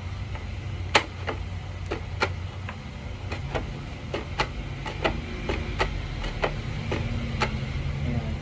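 Plastic visor mechanisms of a KYT NFJ full-face helmet clicking through their detents as they are worked by hand: a string of sharp, irregular clicks, roughly two a second.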